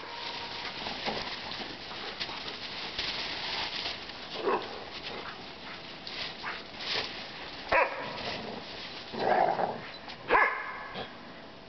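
Dogs in a pack barking now and then: about four short barks a few seconds apart, one a little longer, over the crunch of feet walking through snow.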